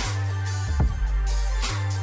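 Background music: a heavy, deep bass line with a few drum hits, no vocals at this point.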